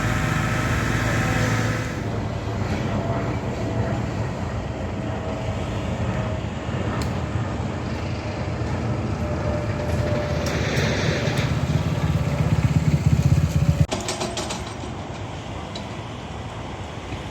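A steady low mechanical rumble that grows louder and then cuts off suddenly about fourteen seconds in, leaving a quieter steady rumble.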